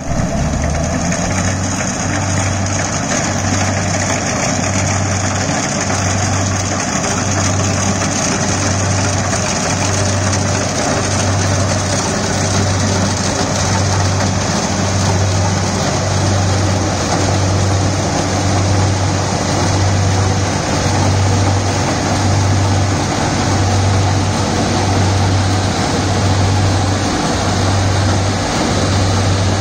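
Kubota PRO 688Q full-feed combine harvester running steadily while cutting and threshing rice, with a low throb repeating about once a second under the machine noise.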